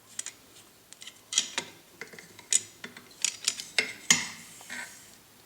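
Irregular metallic clicks, taps and short scrapes as a cleaning brush is twisted and worked inside a rifle's action, with a louder knock about four seconds in.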